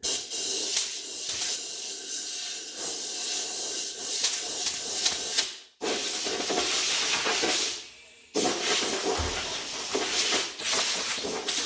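Loud hissing of a pressurized jet of air or spray in three long bursts, each cutting off sharply, the first lasting several seconds.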